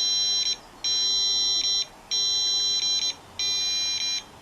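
Cornet 88 RF meter's audio feedback sounding a phone's Bluetooth signal: a high, buzzy electronic tone in bursts of about a second with short gaps between them, repeating over and over.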